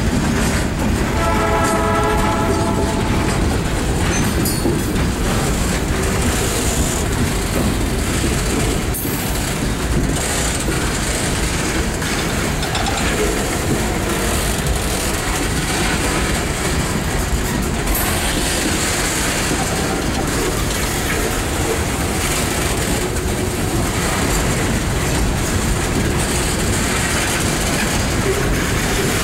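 Freight cars rolling past at close range: a steady rumble of wheels on rail with clickety-clack over the rail joints and an occasional clank. About a second in, a train horn sounds for about two seconds.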